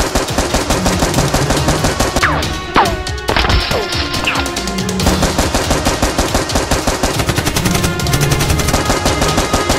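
Continuous rapid machine-gun-fire sound effect over background music, with a few falling whistles about two to four seconds in.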